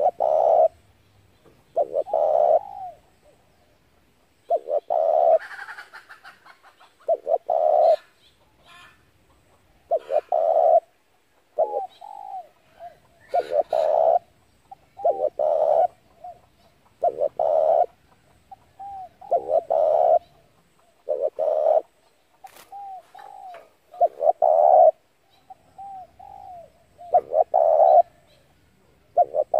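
Spotted dove cooing: loud, low coo phrases repeat about every two seconds, with short curling notes between them.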